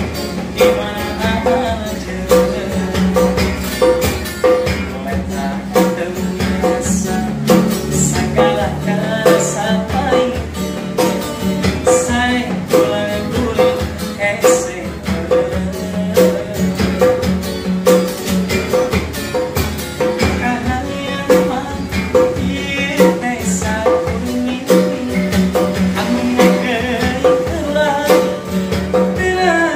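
A male busker singing while strumming an acoustic guitar, with a djembe hand drum keeping a steady beat.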